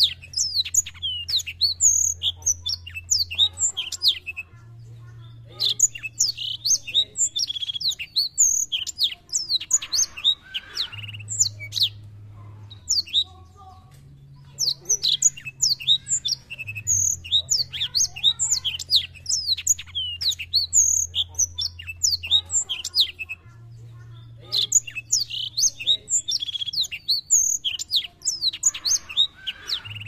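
Black-throated canary (black throat) singing a fast, twittering song of rapid high chirps, in four long phrases with short pauses between them.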